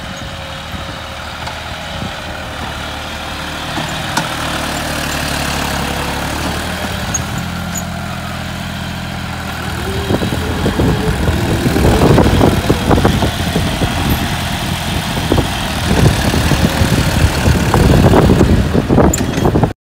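Diesel engine of a John Deere tractor running steadily as it pulls a nine-tyne rigid cultivator through the soil, getting louder as it comes close. From about halfway through, a rough, uneven rattle joins it.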